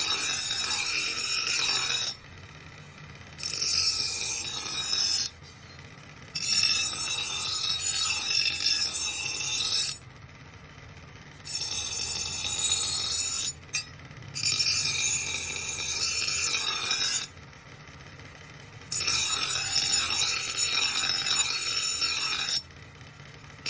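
Steel cleaver blade being worked against an abrasive in about six passes of roughly two seconds each. Each pass is a harsh, hissing scrape that starts and stops abruptly, with short pauses between, over a faint steady low hum.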